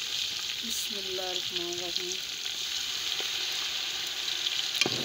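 Chicken pieces, browned onions and garlic-ginger sizzling steadily in hot oil in a pot, stirred with a metal spoon as ground tomato is mixed in. A single sharp knock near the end.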